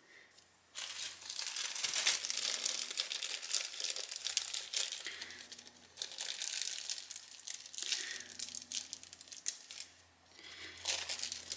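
Thin plastic protective film being peeled off small round aluminum sublimation blanks, crinkling and crackling. It comes in two long bouts with a short pause about halfway through.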